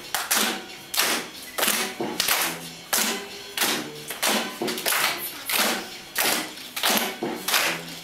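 Rhythmic clapping, about two sharp claps a second, with faint music underneath.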